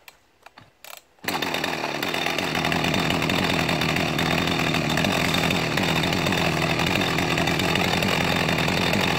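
A few short clicks, then a Jonsered 2055 Turbo two-stroke chainsaw starts about a second in and idles steadily on its own.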